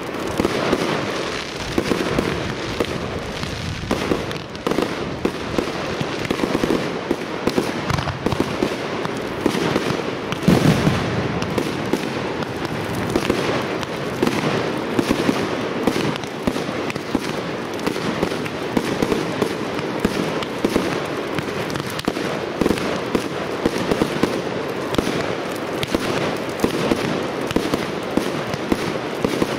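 Professional aerial fireworks bursting in a dense, unbroken barrage of bangs and crackling, with the loudest bang about ten seconds in.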